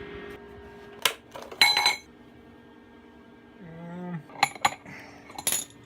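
Steel pieces clinking and knocking together as they are handled, several sharp metallic clinks with a brief ringing tail.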